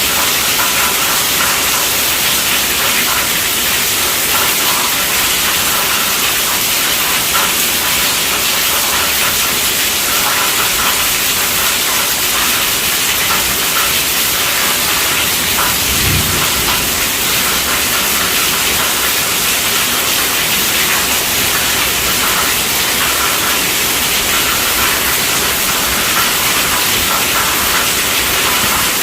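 Steady rainfall, an even hiss with no let-up, and a brief low thud about halfway through.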